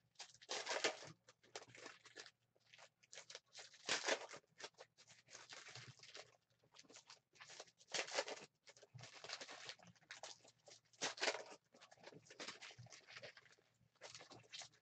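Foil trading-card pack wrappers being torn open and crinkled by hand, with cards sliding and shuffling between, in irregular rustling bursts; the loudest come about a second in and at roughly four, eight and eleven seconds.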